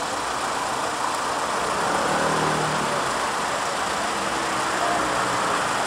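Steady city street traffic noise, motor vehicles running, with a low engine hum rising briefly about two seconds in.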